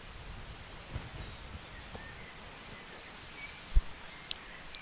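Quiet woodland background with faint, scattered bird chirps. A short low thump comes a little under four seconds in, and two sharp clicks follow near the end.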